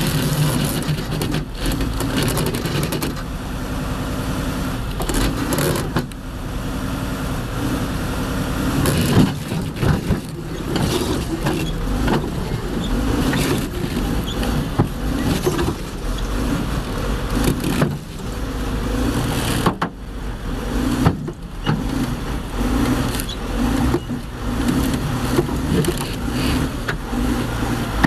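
Large crawler bulldozer's diesel engine running under load as the machine crawls over a lowboy trailer, with occasional clanks and knocks.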